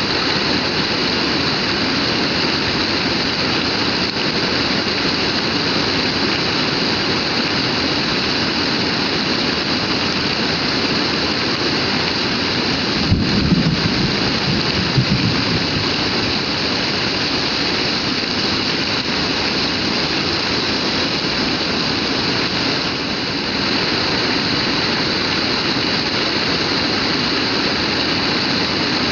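Heavy rain pouring down in a steady, dense hiss. About halfway through there is a short low rumble lasting a couple of seconds.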